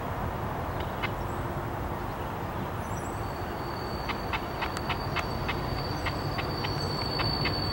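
Diesel switcher locomotive rolling slowly with a steady low engine rumble. About three seconds in a thin, steady, high wheel squeal sets in, along with a run of sharp clicks as the wheels cross the yard's rail joints and switches.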